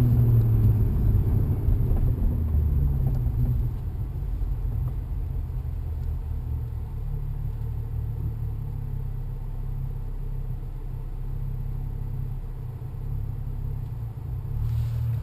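BMW N55 turbocharged straight-six, with a BMS downpipe and JB4 Stage 2 tune, idling roughly: an uneven low rumble that is louder for the first few seconds and then settles a little lower.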